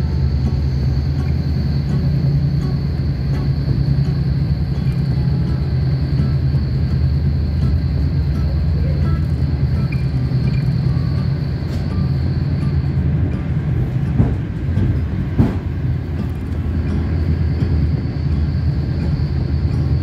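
Passenger train heard from inside the carriage while under way: a steady low rumble with a thin high whine over it, which drops out about two-thirds of the way through and comes back near the end. Two sharp knocks stand out a little after the middle.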